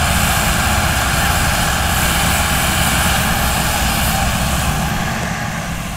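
Massey Ferguson 385 tractor's four-cylinder diesel engine running hard and steady under heavy load, hauling a trolley piled with sugarcane. The drone eases off slightly near the end.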